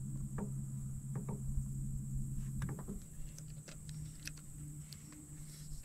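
Electric trolling motor humming steadily, dropping to a lower, quieter hum about three seconds in. Scattered light clicks and knocks sound over it.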